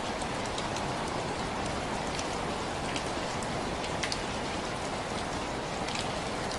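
Steady rain falling, an even hiss with scattered close drops ticking.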